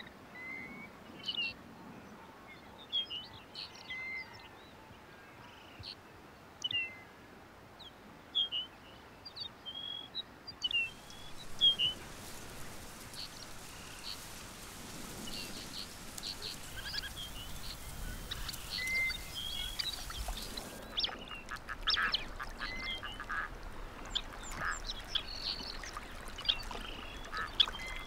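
Wild birds calling on the tundra: scattered short, high chirps throughout, and a run of duck calls in the last several seconds. A faint steady hiss sits under the calls for about ten seconds in the middle.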